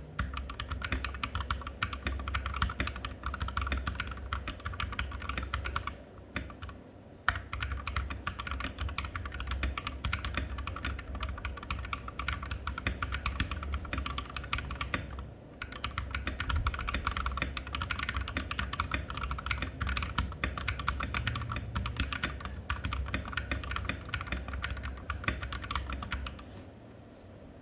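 Fast, continuous typing on a Rexus Daxa M71 Pro mechanical keyboard with lubed Glorious Holy Panda tactile switches and OEM-profile PBT keycaps. The typing breaks off briefly twice, about 6 and 15 seconds in, and stops about a second before the end.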